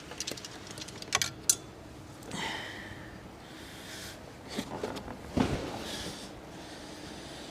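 Scattered light clicks and clinks of metal engine parts being handled as the large timing-chain tensioner is taken out, with a sharper knock about five seconds in.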